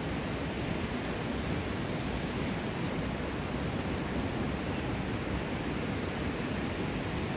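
Steady, even rushing of flowing water at a hot-spring pool, with no monkey calls.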